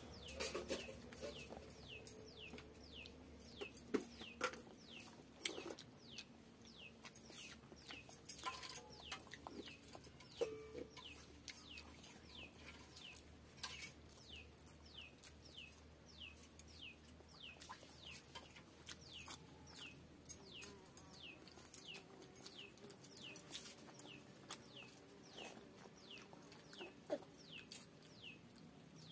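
Quiet hand-eating of rice and curry, with scattered wet smacks and clicks of chewing. Under it a small bird repeats short, high, falling chirps, about two a second.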